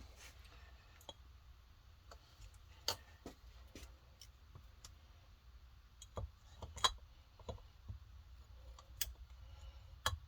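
Scattered light metallic clicks and taps as an oiled piston with its rings is worked down into a two-stroke cylinder by hand, over a low steady hum; the sharpest clicks come a little before 7 seconds and around 9 seconds.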